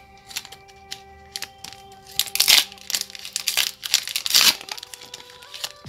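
A Pokémon card booster pack wrapper crinkling and rustling with a run of sharp crackles, loudest twice, about two and a half and four and a half seconds in, as cards are handled, over background music.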